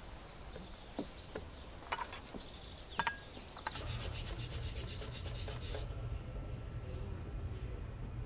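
A blood pressure cuff being handled on a patient's arm makes a rapid rasping rub, about eight strokes a second, for about two seconds. Before it come a few light clinks of teacups and china.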